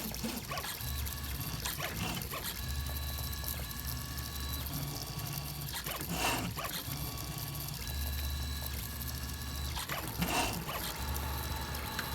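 3D printer's stepper motors whining and humming in steady tones that stop and restart every second or two as the print head moves through its layer. Two short, louder noises cut in, about six and ten seconds in.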